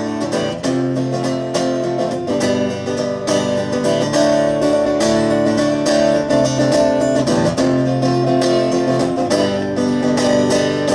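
Guitar strummed in steady rhythm, moving through a series of chords with no singing: the instrumental close of a song.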